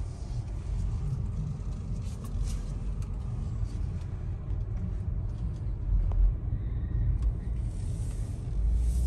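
Low, steady rumble of road and tyre noise inside a Tesla electric car's cabin as it rolls slowly. The rumble swells briefly about six seconds in and again near the end.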